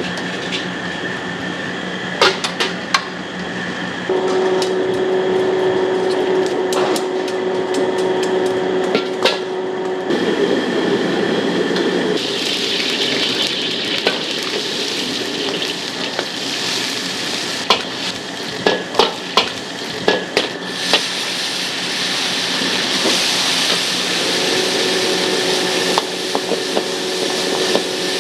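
Wok cooking: a metal spatula clanking and scraping against the wok in clusters of sharp strikes, while food sizzles in the hot oil, loudest from about twelve seconds in. A steady hum runs underneath.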